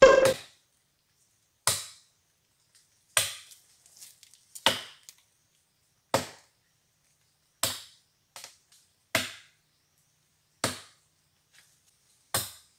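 A run of sharp, woody knocks, nine in all, evenly spaced about a second and a half apart, each dying away quickly, with a few faint clicks between them.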